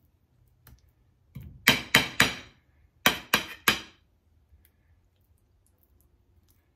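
Metal spoon clinking against the rim of a plate while mayonnaise is smoothed over the salad: a run of four quick clinks, then three more about a second later.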